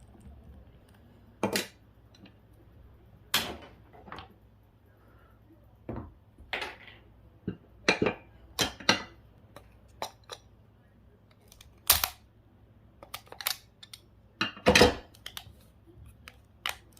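Plastic case of a GPS unit being handled and pried at by hand: irregular sharp clicks and knocks, about a dozen over the stretch.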